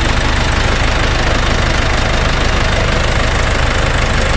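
Self-propelled crop sprayer's diesel engine idling steadily with a low, even rumble.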